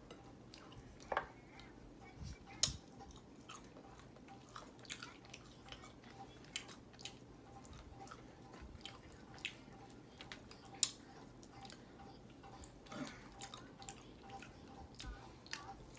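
Faint chewing of fried chicken close to the microphone: scattered soft crunches and small mouth clicks at irregular intervals.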